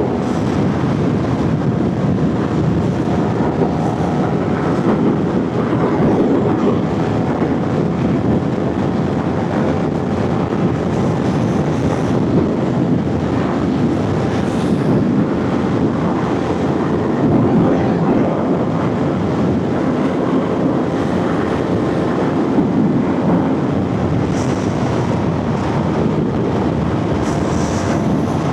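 Motorcycle engine running steadily at riding speed, heard through heavy wind rush on the rider's microphone.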